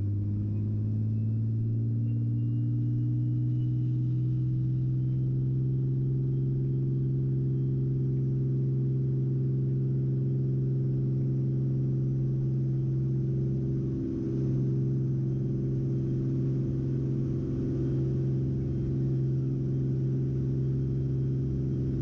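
Beechcraft F33A Bonanza's six-cylinder Continental IO-520 engine and propeller going to takeoff power for the takeoff roll, heard in the cockpit: a steady drone that rises in pitch over the first few seconds, with a faint rising whine, then holds level.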